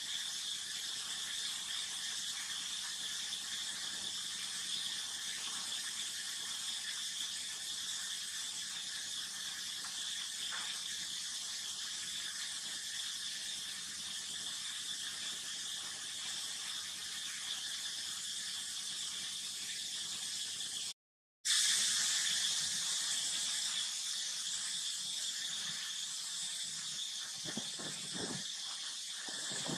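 Steady high-pitched insect chorus, broken by a moment of silence about two-thirds of the way through, with a few soft knocks near the end.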